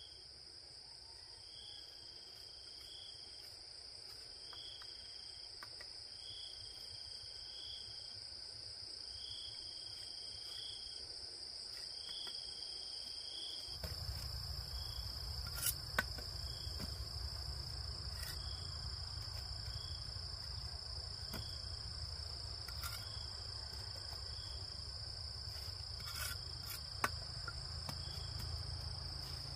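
Insects chirring: one steady, high, unbroken trill, with a second call of short paired chirps repeating about every second and a half through the first half. About halfway a low rumble comes in and stays, and a few sharp clicks sound.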